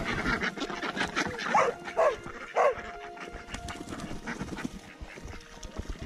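Domestic ducks quacking: three short calls about a second and a half to nearly three seconds in, over scattered clicks and rustling.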